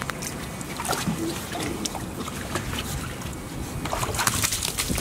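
Shallow water splashing and sloshing as golden retriever puppies scramble about in it, with many short scrapes and knocks, busier toward the end.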